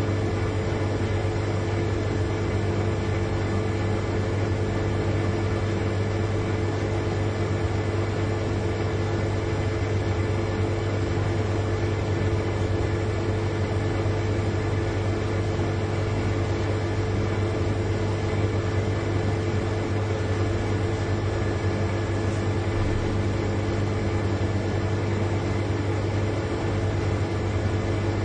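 Large refrigerator's compressor running with a steady low hum and an even whir over it.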